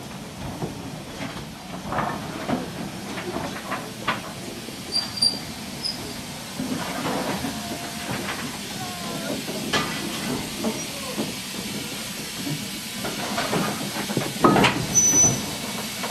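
BR Standard Class 4 2-6-4T tank locomotive 80104 moving slowly at low speed, steam hissing from its open cylinder drain cocks, with irregular knocks and clanks. A louder burst comes near the end as it draws close.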